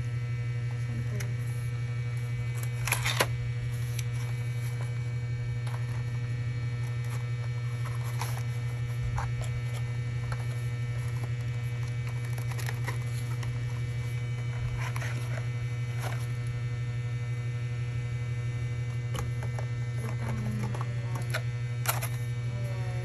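Steady low electrical hum, with scattered light clicks and rustles of the headset's packaging being handled; the sharpest clacks come about three seconds in and near the end.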